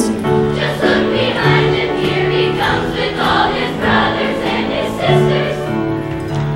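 Large mixed show choir of young singers singing together, holding notes.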